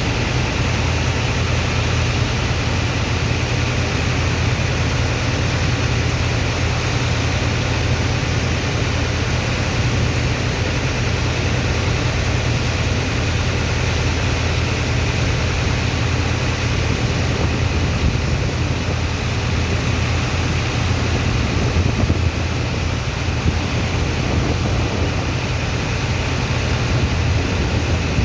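A sand-unloading dredger machine and its water pump running steadily: a low engine hum under a constant, dense rushing noise.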